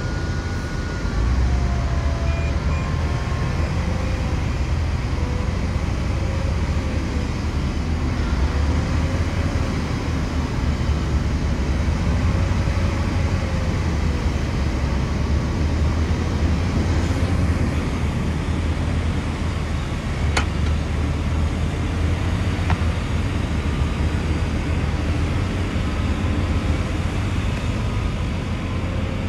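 Heavy diesel earthmoving machinery running steadily with a deep, constant low rumble. Two short sharp clicks come about two-thirds of the way through.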